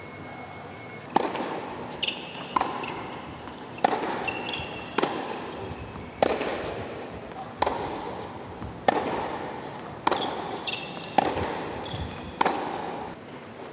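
Tennis rally on a hard court: ball struck by rackets and bouncing, a sharp pop about every second and a bit, each with a short ringing tail, and a few short high squeaks between some of the hits.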